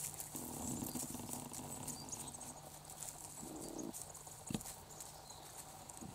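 Quiet outdoor rustling and crunching of someone walking through dry grass, brush and patchy snow, with one sharp click about four and a half seconds in.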